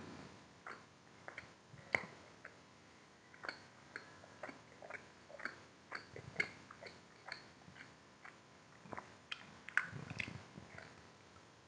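Chewing a slice of homemade cheese pizza: faint, irregular mouth clicks, a few a second.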